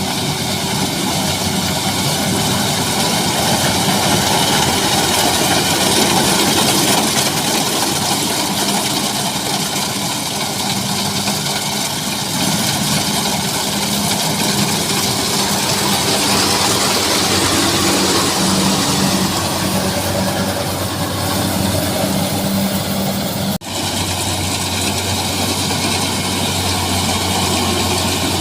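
Rice combine harvester's diesel engine running steadily at working speed while it cuts rice, with a dense mechanical noise over the engine drone.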